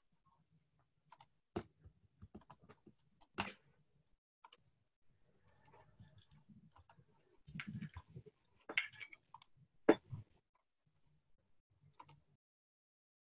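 Faint, irregular computer clicks, mouse and keyboard, with soft handling rustle between them. The loudest click comes about ten seconds in.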